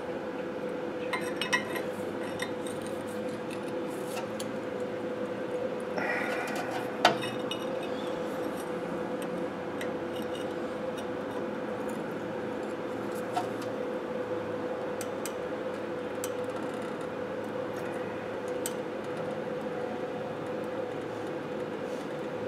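Steel pry tool levering and scraping against a truck's front disc brake caliper, giving a few sharp metallic clinks, the strongest about seven seconds in, and a few light ticks later, over a steady hum.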